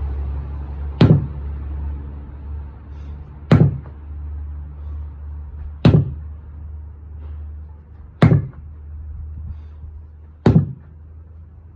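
A 12-pound sledgehammer striking a tire five times, one blow about every two and a half seconds, in a long unbroken run of hits, with a steady low hum underneath.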